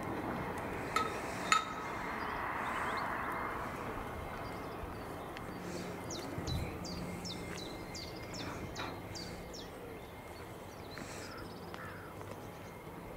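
Two sharp metallic clinks about a second in, from a steel level-crossing gate being latched. A bird then repeats a short falling call about twice a second for several seconds.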